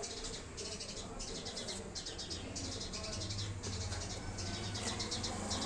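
High-pitched chirping repeated in bursts of about half a second, roughly one and a half bursts a second, over a faint low steady hum.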